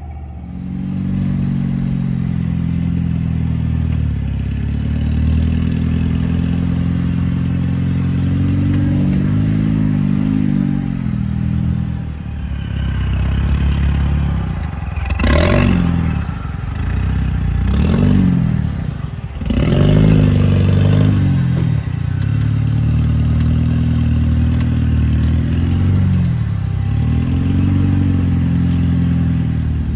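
Off-road truck's engine running at low revs as it crawls over rock, revved up and down a few times midway, with a sharp clatter of rock about halfway through.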